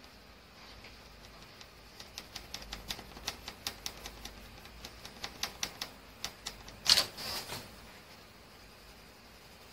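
A coloured pencil hatching quick short strokes on sketchbook paper, each stroke a sharp scratchy tick, about four a second. About seven seconds in comes one louder, longer scrape.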